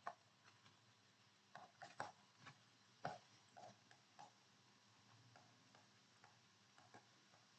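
Near silence with faint, irregular small clicks and taps: a stylus on a pen tablet as words are handwritten.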